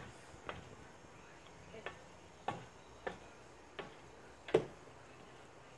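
Footsteps climbing metal RV entry steps: a series of about seven separate light knocks at an uneven pace, the loudest about four and a half seconds in.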